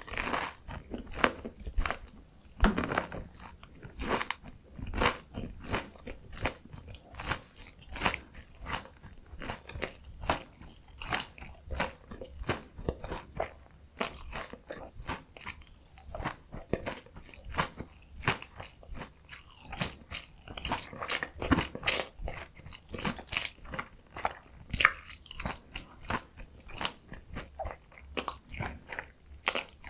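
Close-miked eating of a potato-coated mozzarella corn dog: crunchy bites into the fried crust followed by steady chewing, with many short crisp crunches throughout.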